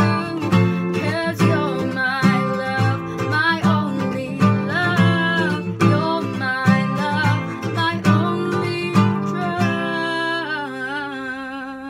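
A woman singing while strumming an acoustic guitar. Near the end the strumming stops and a last chord rings on under a held sung note that fades out.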